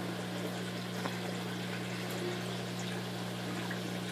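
Saltwater aquarium system running: a steady wash of circulating, splashing water with a constant low pump hum underneath.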